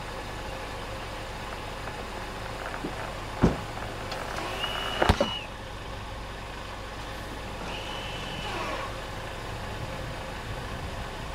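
Pickup truck engine idling steadily as the truck creeps forward onto a tire lying flat, pressing on its sidewall to break the bead. Two sharp knocks come a second and a half apart a few seconds in, and a brief high squeal sounds twice.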